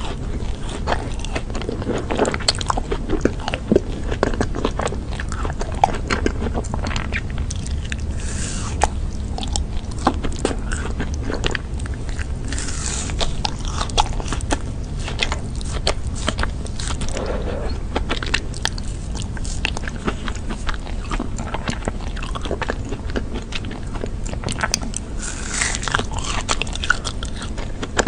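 Close-miked biting and chewing of a chocolate ice cream bar with a crunchy crumb coating: dense, irregular crackling crunches all the way through.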